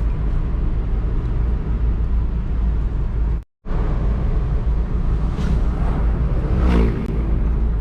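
Steady road noise from a moving vehicle: a heavy low rumble with broad noise over it. The sound drops out completely for a moment about halfway through, and a short pitched sound rises out of the noise near the end.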